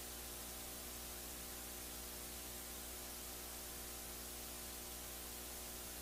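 Steady hiss with a faint hum and no other sound: the live-stream audio feed has dropped out while the video buffers.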